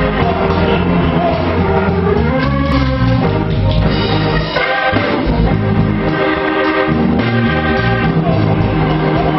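Live church worship music: several voices singing over instrumental accompaniment with a steady bass line, playing continuously.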